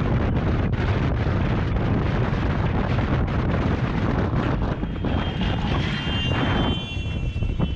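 Steady road and wind noise of a moving vehicle, with a high squeal of several tones setting in about five seconds in.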